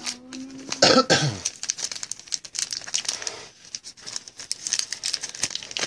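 Foil wrappers of Panini NBA Hoops basketball card packs crinkling and crackling as they are handled.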